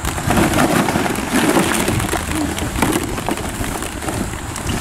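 Many hollow plastic ball-pit balls clattering and rattling against each other as children burrow and dig through a kiddie pool full of them.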